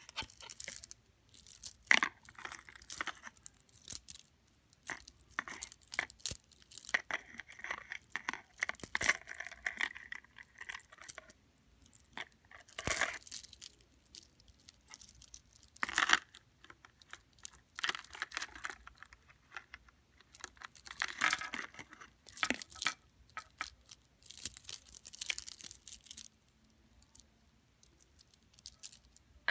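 Chunky gold-tone metal chain necklace with black links and spikes being turned over in the hands: the links clink and jangle in irregular bursts with short pauses between.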